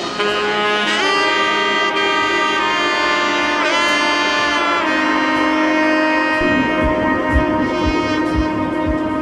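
Background music: a melodic lead of long held notes that slide into pitch near the start and again in the middle. A low, steady beat comes in about two-thirds of the way through.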